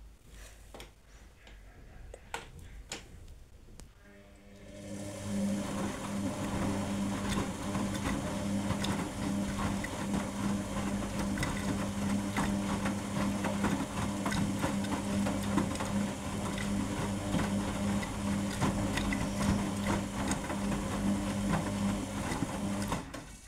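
Arçelik 7103 front-loading washing machine's motor turning the drum, a steady hum with some clatter that starts about four seconds in and stops abruptly near the end.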